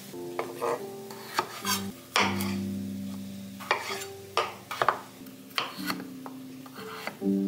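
Chef's knife cutting baby potatoes on a wooden cutting board: irregular sharp knocks as the blade goes through and hits the board, about ten in all. Soft background music with held notes plays under it.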